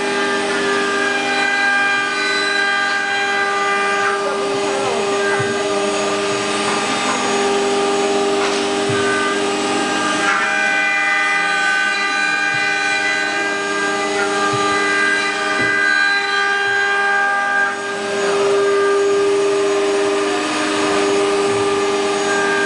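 Multi-spindle 4-axis CNC wood router running, its spindles giving a steady chord of high whines as the router bits carve wooden workpieces turning on the rotary axes, with a hiss of cutting.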